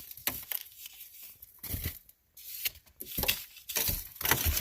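Ice and crusted snow being broken up and cleared, with irregular crunching, cracking strokes.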